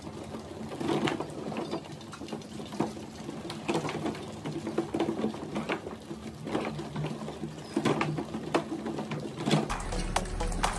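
Many small mice scrabbling over and inside a plastic bucket, their claws scratching and tapping on the plastic in a busy, irregular patter. Music comes in near the end.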